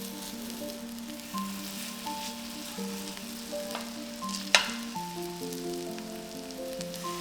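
Food frying and sizzling in a pan, a steady crackling hiss, with a sharp clink about four and a half seconds in. A slow melody of held notes plays over it as background music.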